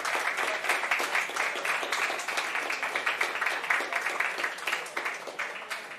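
Audience applauding: many hands clapping together in a dense patter that thins out near the end.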